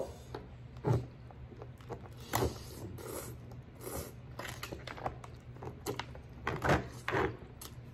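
Eating sounds: a person chewing and slurping noodles, with several short wet smacks and clicks scattered through, over a low steady hum.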